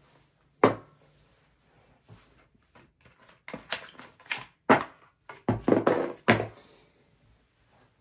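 Off-screen handling noises between steps of a laptop SSD swap: a sharp knock a little over half a second in, then a run of clicks and rustles from about three and a half to six and a half seconds.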